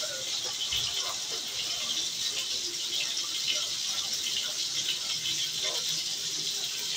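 Steady hiss with light clatter of kitchen work.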